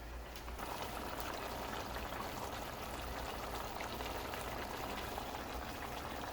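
Fish curry simmering in a pot on the stove: a steady bubbling that comes up about half a second in.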